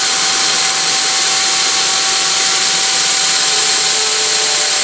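Belt grinder's electric motor running steadily from a frequency inverter, with a constant high whistle over its running noise. The owner suspects the whistle comes from the motor itself.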